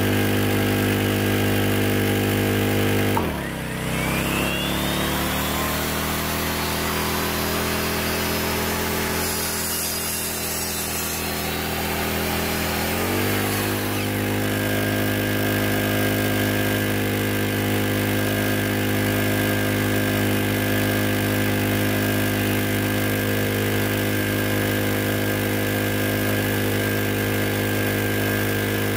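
Champion portable gasoline generator running steadily, then bogging down in pitch about three seconds in as a miter saw plugged into it starts and is lowered to cut through a block of wood. The saw's motor whines over the laboring engine for about ten seconds, and then the load comes off and the generator's engine climbs back to its steady speed.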